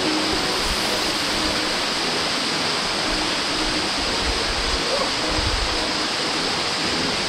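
Steady rush of a waterfall pouring down a rock cascade in a canyon.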